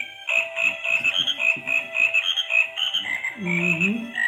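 Battery-powered novelty toy frog playing its recorded croaking song: a quick run of tinny electronic notes over repeated croaks, with a lower gliding croak near the end.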